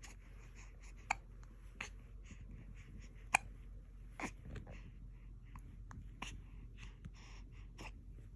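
A baby hiccuping: a run of short, sharp hiccups at uneven intervals, about every one to two seconds.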